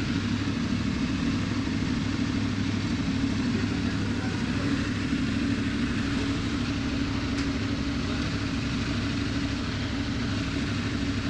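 Motorcycle running steadily while being ridden on the road, its engine note and road noise holding an even level throughout.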